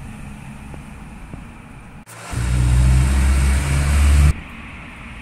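A loud, low, engine-like rumble with a steady hum starts abruptly about two seconds in and cuts off sharply about two seconds later, over a faint low background noise.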